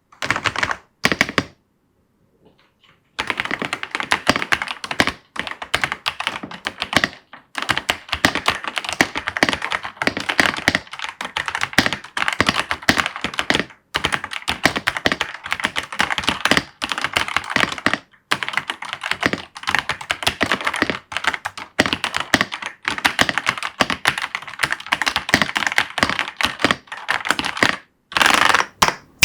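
Ajazz AK820 Pro V2 75% mechanical keyboard being typed on fast: dense runs of keystroke clacks, with a short pause about two seconds in.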